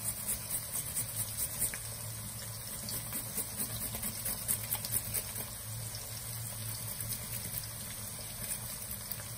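Sliced onions sizzling in hot oil in a wok, a steady hiss with scattered small crackles, while fresh ginger is rasped on the coarse side of a grater over the pan.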